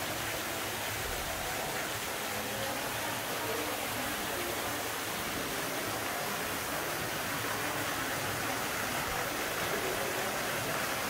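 Steady rushing of water falling down an indoor waterfall feature.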